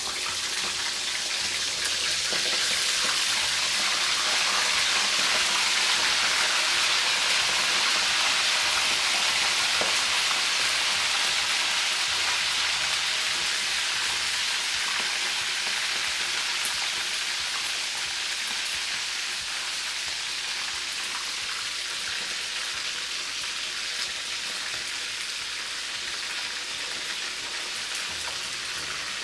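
Boiled chicken pieces deep-frying in hot oil in a wok: a steady sizzling hiss that builds over the first few seconds as the pieces go in, then slowly eases.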